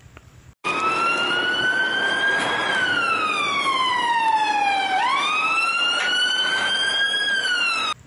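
Police siren wailing: one tone that slowly rises, falls to a low point about five seconds in, then sweeps back up, over a steady rushing noise. It cuts in suddenly a little over half a second in.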